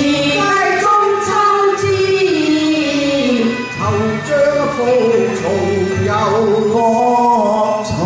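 Singers performing a Cantonese opera duet into handheld microphones, with long gliding melismatic lines sung over accompaniment.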